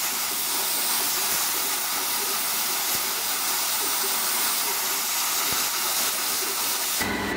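MIG welding arc running on a steel bar, a steady hiss that stops suddenly near the end as the trigger is released.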